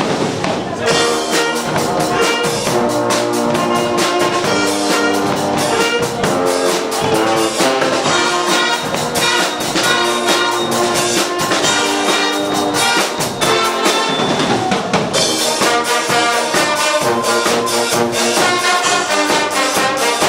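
Guggenmusik band playing live: trumpets and trombones blaring sustained chords over drums and cymbals keeping a steady beat.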